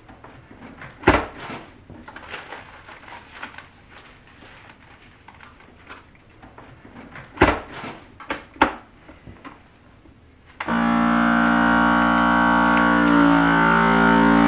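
Plastic bags rustling as they are handled, with a few sharp knocks. About ten seconds in, a countertop vacuum sealer's pump starts abruptly with a loud, steady hum while it draws the air out of a bag of fish fillets.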